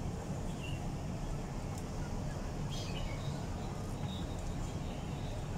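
Steady low background rumble with a few short, high chirps like small birds, about half a second in and again around three and four seconds in.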